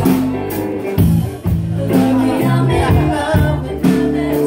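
A live band playing an acoustic pop song: strummed acoustic guitar and ukulele over electric bass, with singing.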